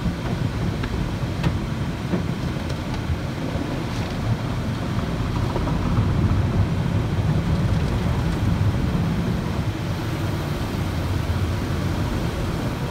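Automatic car wash heard from inside the car's cabin: water jets spraying and pelting the windshield and body, over a steady low rumble that swells a little midway.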